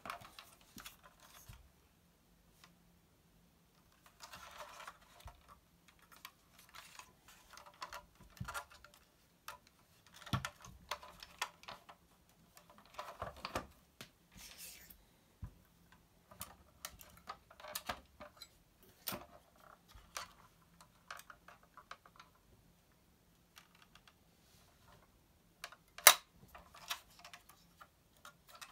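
Hands handling a 1:18 diecast model car on a wooden table: scattered rustling, small clicks and taps of plastic and metal parts, with one sharp click near the end.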